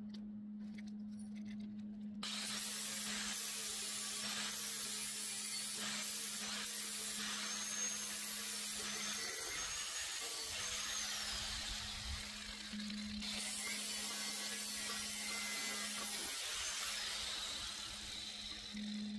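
Angle grinder grinding down steel weld beads on a mower deck. It starts about two seconds in, pauses briefly near the middle, then grinds again until near the end, over a steady low hum.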